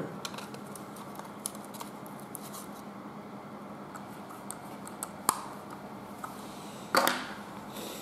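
Small clicks and scraping of a screwdriver turning tiny screws into a perforated metal laptop hard-drive caddy, with a sharp click about five seconds in and a louder knock about seven seconds in as the metal caddy is handled.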